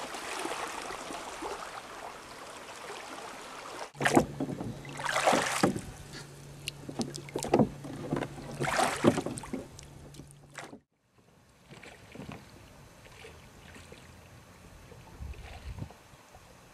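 Oars of a small rowboat dipping and pulling through the water: a series of splashy strokes about every second or two over a low steady hum. Before them comes a steady rush of water, and near the end it drops to quiet, faint shoreline sound.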